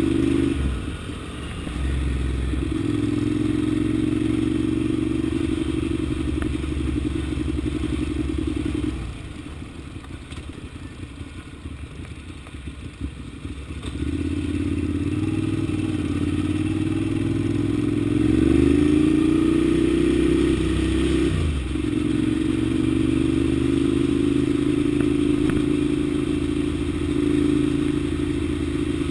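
Ducati Monster 795's air-cooled L-twin engine running under way. It dips briefly about a second in and drops to a much quieter low run for several seconds around the middle. Then it pulls up in pitch, dips sharply at a gearshift, and runs steadily again.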